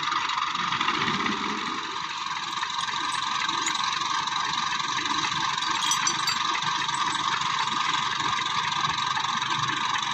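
Massey Ferguson 240 tractor's diesel engine idling steadily.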